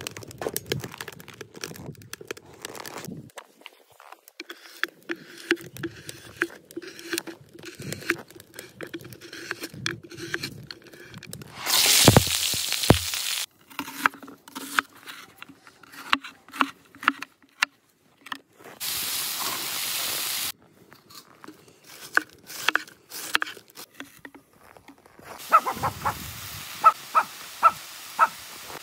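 Cooking over a wood-fired barrel stove: many short, sharp knife strokes on a wooden cutting board, and bursts of loud sizzling as food goes into the hot wok. The sizzling comes about twelve seconds in, again around nineteen seconds, and from about twenty-five seconds on.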